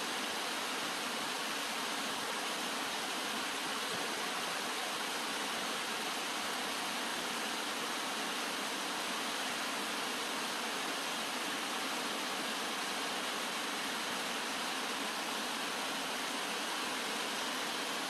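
Shallow stream water rushing over stones and gravel riffles, a steady, even rush.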